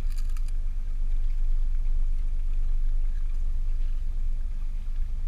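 Steady low rumble of a small boat out on open water, with a brief run of quick clicks right at the start.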